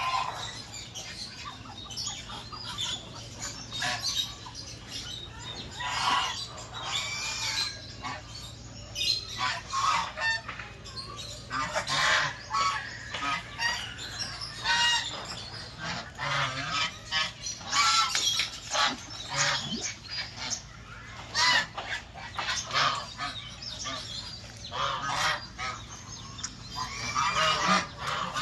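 A flock of birds calling, many short calls overlapping one after another throughout.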